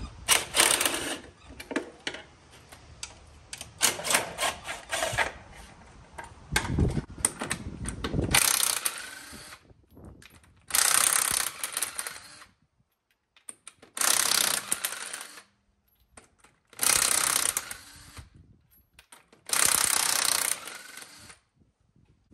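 Cordless impact wrench hammering lug nuts loose on a vehicle's rear wheel. Shorter, uneven bursts come first, then four separate runs of about a second and a half each, one per nut.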